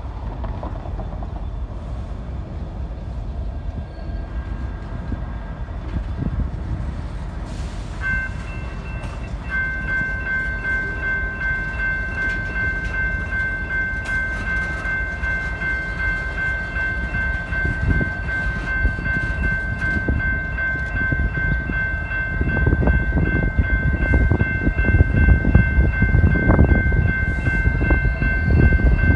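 Locomotive air horn on a BNSF GP60 (a Metrolink-type Nathan P2): after a brief first note about eight seconds in, it is held as one long chord to the end. Under it, the train's wheels and the locomotives' diesels rumble, growing louder in the last seconds as the cars and engines pass close.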